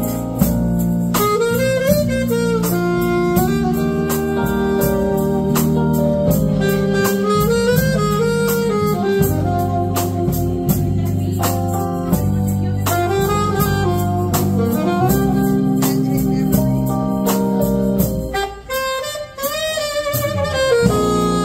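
Live jazz band playing: a saxophone carries the melody over keyboard, guitar and drum kit. Near the end the accompaniment drops out for about two seconds while the saxophone plays on, then the full band comes back in.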